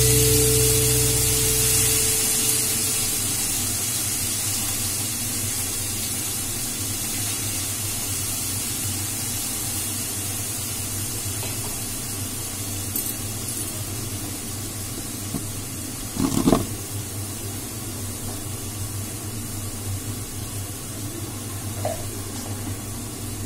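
Steady sizzling of food frying on a gas stove, a pancake on a griddle and potatoes in a wok, over a low steady hum, with one short knock about sixteen seconds in.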